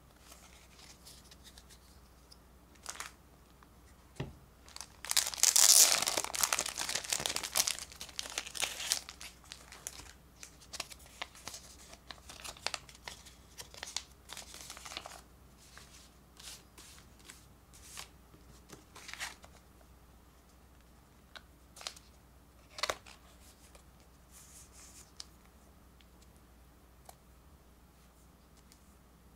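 Thin plastic wrapping on a pack of card sleeves being torn and crinkled, loudest about five to nine seconds in. After that come quieter plastic rustles and scattered soft clicks as cards and sleeves are handled.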